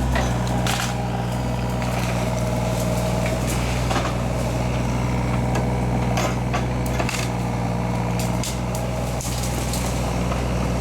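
A heavy diesel machine's engine running steadily while it clears trees, with scattered sharp cracks and snaps of breaking wood and brush.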